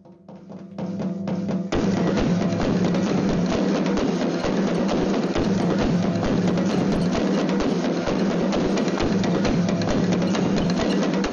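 Percussion-driven background music with fast drum and wood-block-like hits. It swells in over the first two seconds, then carries on at full level.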